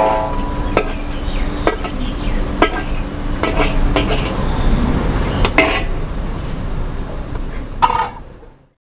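Metal spatula clanging and scraping against a large wok as mee goreng is stir-fried, with sharp clangs about once a second over a steady hiss. The sound fades out near the end.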